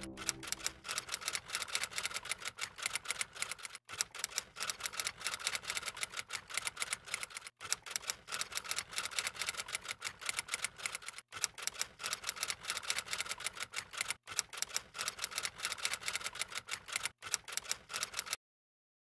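Typewriter typing sound effect: a fast, quiet run of key clicks, pausing briefly every few seconds and stopping abruptly shortly before the end.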